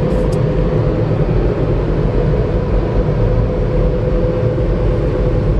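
Car wash air-dryer blowers blasting air over the car, heard from inside the cabin: a steady, loud rush of air with a constant whine.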